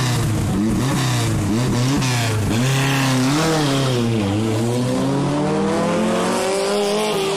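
Rally car engine revved in quick blips, then pulling away and accelerating. The pitch rises, drops once at a gear change about four seconds in, and climbs again.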